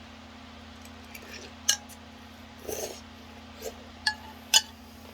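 Eating utensils clinking lightly against a ramen bowl a few times, the sharpest clink about four and a half seconds in, with a softer rustle or slurp near the middle.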